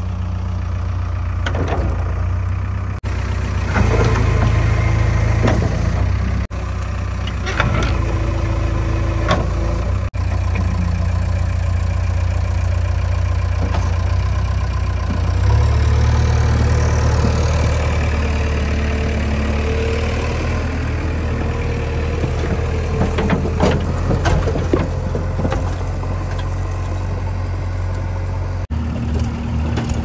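Diesel engines of a JCB 3DX backhoe loader and a tractor running while the loader loads mud, the engine note growing heavier about halfway through, with scattered short knocks.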